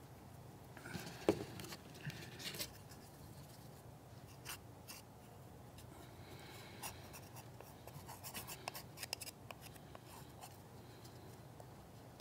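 Faint scraping and light tapping of a thin flat tool spreading acrylic paint across a small wooden plank, with a few sharper clicks in the first few seconds.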